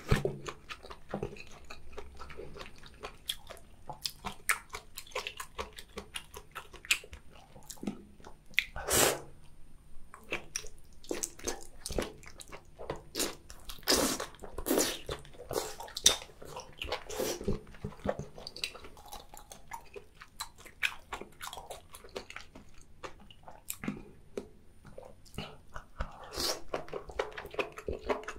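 Close-miked chewing of boiled octopus: sticky, wet mouth sounds and many sharp little clicks, with a few louder bites and smacks along the way.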